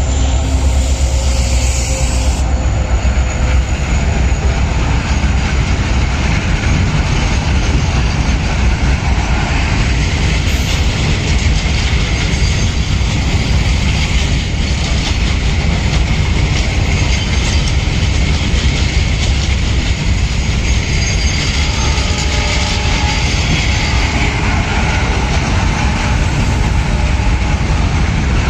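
Loaded coal freight wagons rolling past on the track: a loud, steady rumble of wheels on rail with clickety-clack over the rail joints. A few faint wheel squeals come in the last third.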